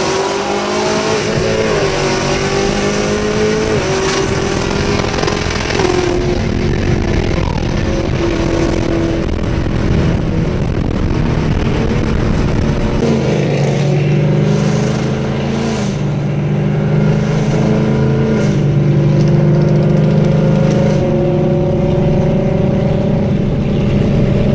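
Car engine heard from inside the cabin, accelerating hard with its pitch climbing and dropping back at each gear change, then running at a steadier cruise about halfway through, with the pitch climbing slowly again near the end.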